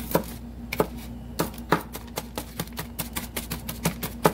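Kitchen knife chopping onion: a run of sharp taps, a few spaced out at first, then about five a second from two seconds in.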